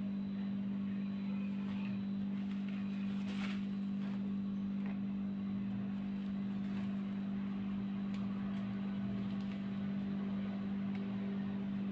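Steady low machine hum at one unchanging pitch, with a few faint soft clicks over it.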